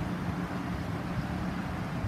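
Distant engine drone of a small aircraft flying away, mixed with wind buffeting the microphone.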